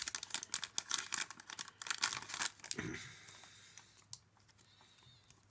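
Thin plastic card packaging crinkling and crackling as it is handled, rapid for about three seconds, then a short soft swish before it goes quiet.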